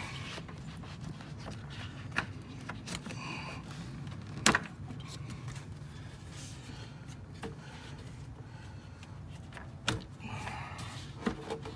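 Plastic air intake duct and airbox being worked loose by hand and lifted out of an engine bay: scattered rustling and scraping with a few sharp clicks or knocks, the loudest about four and a half seconds in and another near ten seconds, over a steady low hum.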